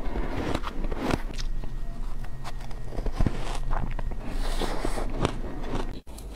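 Close-miked crunching of shaved ice being bitten and chewed, in quick, irregular crunches, with a metal spoon scooping into the ice. The sound breaks off briefly near the end.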